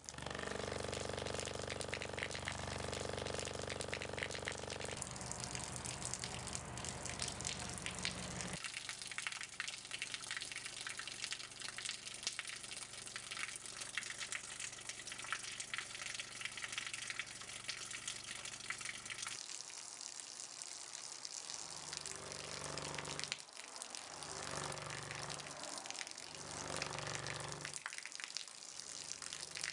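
A thin stream of water pouring from a tube past a loudspeaker driven with a 24 Hz tone, making a steady splashing hiss. Under it runs a low hum that changes twice in the first part, and near the end it pulses about every second and a half.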